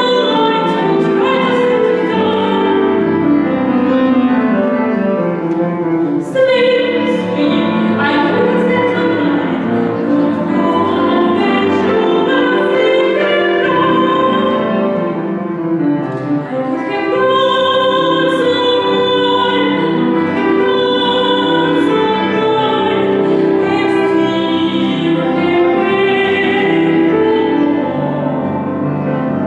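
A woman singing solo in a trained, operatic style, her held notes wavering with vibrato, over instrumental accompaniment.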